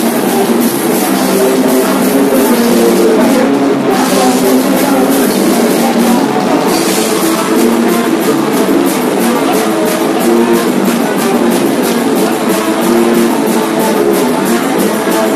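Metal band playing live: distorted electric guitars and bass riffing over fast, even drumming. The cymbals drop out briefly about four seconds in.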